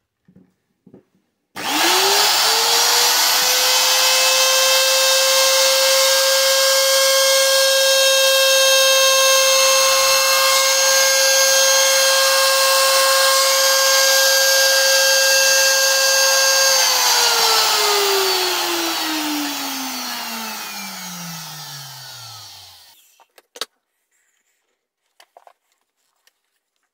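Trim router switched on: its motor spins up to a high, steady whine within a second and runs at full speed for about 15 seconds. It is then switched off and winds down in a long falling whine over about six seconds, followed by a few light clicks.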